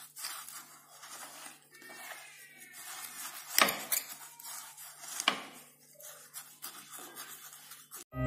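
Fork beating instant coffee, sugar and warm water into a thick paste in a glass: rapid scraping and tapping against the glass, with two louder clinks about three and a half and five seconds in. It stops abruptly near the end.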